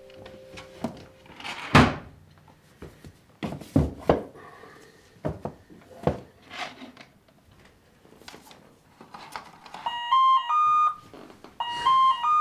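Knocks and thunks of objects being handled on a wooden shelf, one sharp thunk loudest about two seconds in. About ten seconds in, an electronic door-intercom chime plays a short stepped melody, then plays it again.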